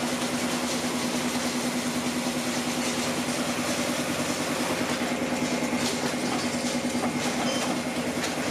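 Motor-driven paper tube rolling machine running steadily: a constant hum with a fast, even pulsing from its drive.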